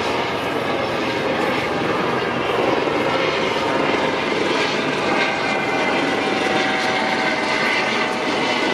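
E-class electric tram running along its track, a steady wheel-on-rail running noise with a faint electric whine from its traction motors.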